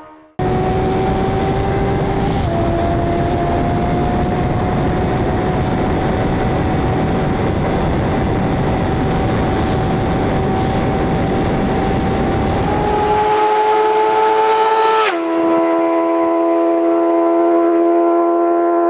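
Honda CB650F's inline-four engine held at high revs through a Jeskap full 4-2-1 exhaust with a Mini GP tip: a loud, steady, high-pitched note that creeps slowly upward. It shifts abruptly a little over 2 s in and again about 15 s in, where it settles to a lower steady note and the low rumble drops away.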